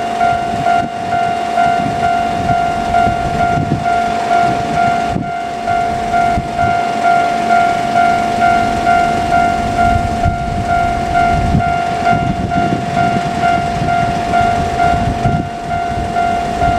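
Japanese level-crossing warning bell ringing: a steady, evenly repeating electronic ding. Under it a train runs past with a low rumble and occasional wheel knocks.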